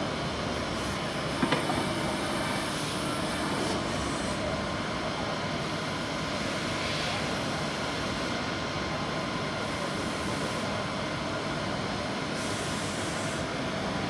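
Citizen Cincom L320 sliding-head CNC lathe running as it machines brass, a steady mechanical whir and hiss, with a short double click about a second and a half in.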